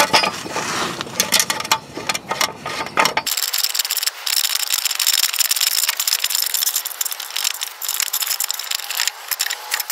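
Threaded steel post and nut of a screw-type jack stand being turned by hand: rapid clicking and rattling of the threads, with a few separate knocks in the first three seconds.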